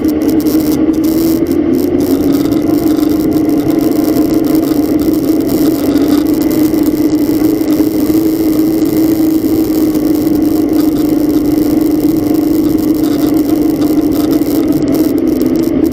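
A car driving in heavy rain: a steady engine and road drone with rain noise over it.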